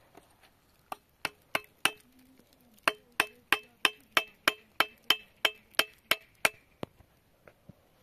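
Something hard struck over and over, each blow leaving a short ringing clink. Four blows come first, then after a pause of about a second a steady run of about fourteen more at roughly three a second, stopping shortly before the end.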